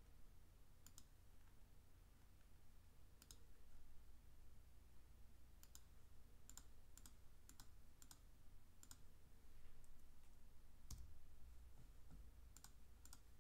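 Faint computer mouse clicks, about a dozen single clicks at irregular intervals, over a low steady hum.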